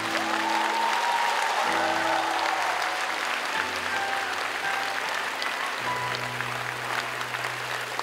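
Audience applauding over music with long held notes.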